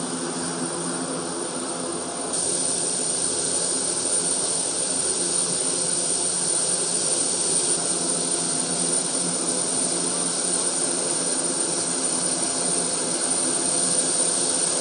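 Military cargo plane's turbine engines running steadily on the ground: a constant whine over a rush of hiss. The hiss gets louder about two seconds in.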